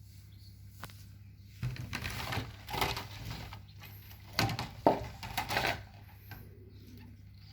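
Two stretches of rustling and light clattering, each a second or two long, over a steady low hum.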